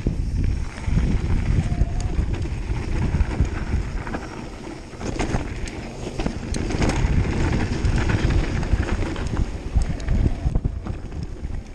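Mountain bike descending a dirt trail at speed: wind buffeting the camera microphone over the crunch of tyres on loose dirt, with scattered rattles and knocks from the bike over bumps.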